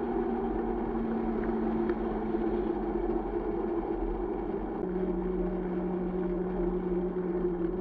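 Fast mountain-bike ride heard through a bike-mounted camera: a steady, muffled rumble of wind and tyres on asphalt, with a low hum that shifts a little lower about five seconds in.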